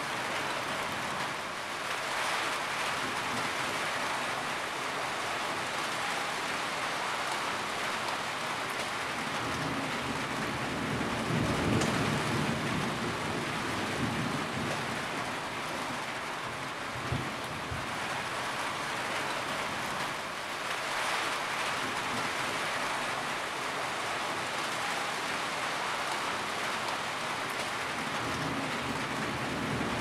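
Heavy rain pouring steadily onto a roof, with a deeper low rumble swelling and fading around the middle.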